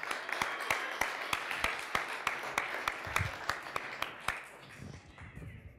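A congregation applauding: many people clapping together, the clapping thinning out and dying away in the last second or so.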